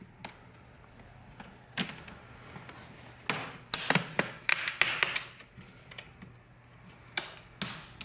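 Plastic snap-clips of a Lenovo Z50 laptop's screen bezel cracking loose as the bezel is pried off by hand: a run of sharp cracks and clicks, one alone at first, a quick cluster in the middle, and two more near the end.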